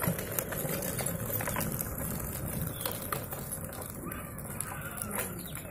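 Plastic wheels of a child's tricycle rolling and rattling over a rough concrete surface, loudest at first and fading as it moves away.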